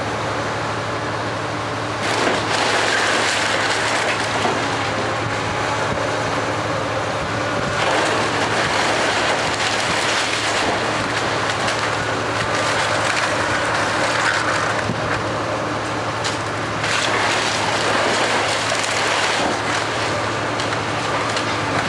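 Komatsu PC360 hydraulic excavator running steadily as its bucket tears into a wood-frame house, with splintering wood and crunching debris that get louder in three spells.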